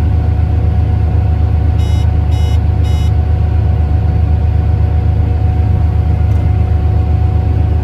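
Heavy farm machinery's engine running at a steady drone, with three short electronic beeps about two seconds in, each about half a second apart.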